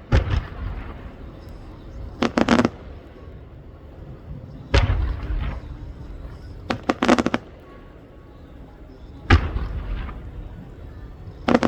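Aerial firework shells bursting. Two single deep booms trail off slowly, and between them come quick clusters of sharp reports, several in under half a second.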